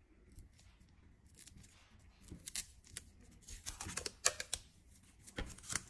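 Thin plastic protective film being peeled and crinkled off a cordless hair trimmer by gloved hands: irregular crackles and rustles, loudest around four seconds in.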